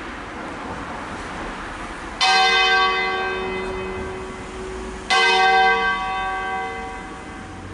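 Church bell from a ring of six cast by Crespi of Crema in 1885, hung on wheels, sounding two strokes about three seconds apart, each ringing out and slowly fading. It is part of a slow funeral peal (concerto funebre).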